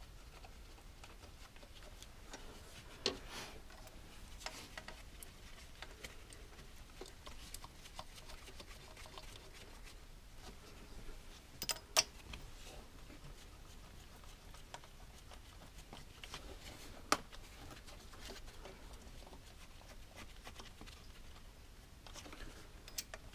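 Occasional sharp clicks and light knocks of hand tools and parts being handled during engine repair work, the loudest two about twelve and seventeen seconds in, over a faint low hum.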